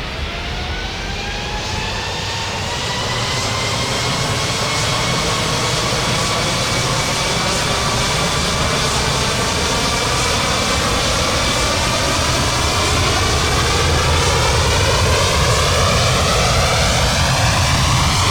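Airbus A330-300 jet engines spooling up for takeoff: a whine that rises in pitch over the first few seconds and then holds, under a heavy engine rumble that grows steadily louder.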